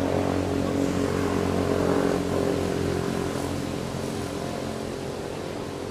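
A motor engine running steadily with a low, even hum, a little louder about two seconds in and then slowly fading.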